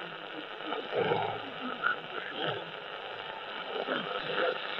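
Shortwave reception from a Barlow Wadley XCR-30 Mark 2 receiver's speaker: a weak voice broadcast half-buried in static and hiss.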